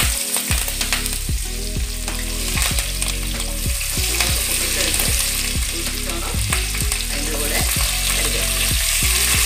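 Sliced green chillies and curry leaves sizzling in hot oil with cumin and mustard seeds in an aluminium kadai, stirred with a wooden spatula. A low hum runs underneath.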